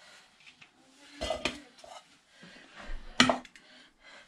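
Kitchen dishes and metal utensils clinking and knocking: a few knocks about a second in and a louder clank just past the three-second mark.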